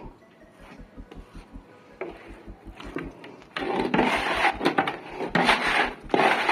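Plastering trowel scraping and rubbing wet gypsum plaster across a wall, harsh scraping strokes starting about halfway in and repeating three or four times.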